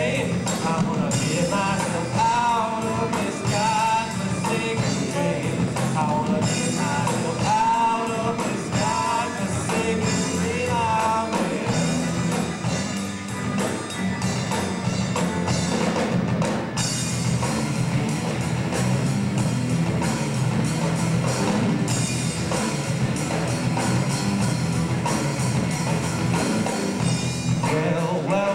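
Live rock band playing: electric guitars, bass guitar and drum kit, with a lead vocal over roughly the first twelve seconds, then an instrumental stretch, and the singing coming back near the end.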